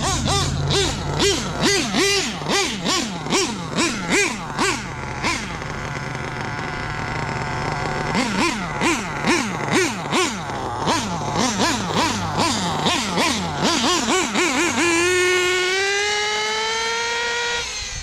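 Nitro RC car's Dynamite .28 big-block two-stroke glow engine revving up and down in quick repeated throttle blips, about two a second, easing off for a few seconds midway. Near the end it climbs steadily in pitch under a long pull of throttle, then cuts off sharply.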